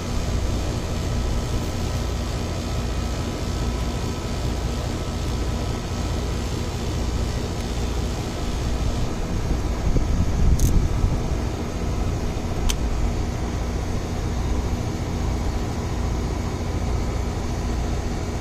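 Ameristar 4-ton central air conditioner's outdoor condensing unit running steadily, compressor hum and condenser fan together, working normally again on a newly replaced run capacitor. Two brief ticks about two seconds apart come a little past halfway.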